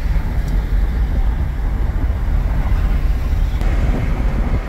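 Steady road and wind noise inside a car's cabin at freeway speed, a low, even rumble.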